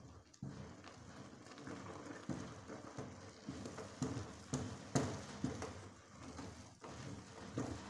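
Wooden stirring stick knocking and scraping in an aluminium pot as yam flour (elubo) is turned into thick amala dough, making irregular knocks and thuds about twice a second.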